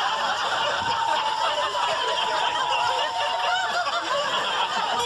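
Sitcom laugh track: an audience laughing together, steady throughout, after a punchline.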